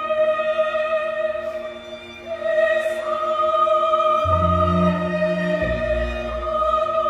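Choir and orchestra holding long, sustained chords in slow classical music. Deep low notes come in a little past halfway and change pitch about a second later.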